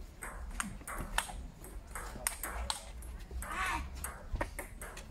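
Table tennis rally: the celluloid-type ball ticking back and forth, alternately struck by rubber paddles and bouncing on a hard outdoor table, a quick irregular run of sharp clicks.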